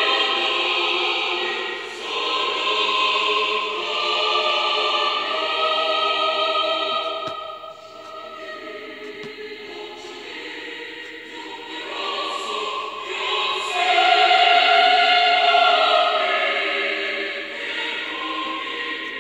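A choir singing long held notes as background music, softer for a few seconds around the middle and swelling again later.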